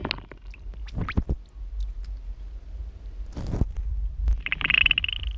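Muffled underwater rumble and water noise from a camera held in the lake, with scattered clicks and a thud, and a short rapid rattling near the end.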